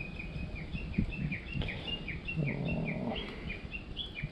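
A wild animal's high call: short notes that each fall in pitch, repeated about three times a second. A brief low sound comes about two and a half seconds in.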